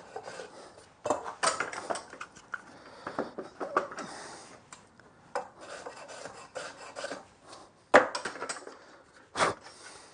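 Hand plane shaving the end grain of a pine block in a run of short rasping strokes. Two sharp knocks come near the end.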